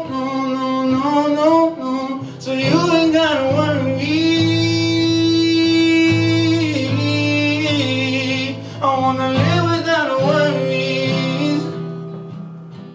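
A singer with guitar accompaniment performing a song. The singer holds one long note in the middle, and the music fades out near the end.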